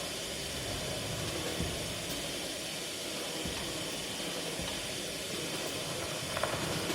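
Experimental improvised music from turntables and drums, here a steady hissing noise texture over a low rumble, with a few faint clicks about six and a half seconds in.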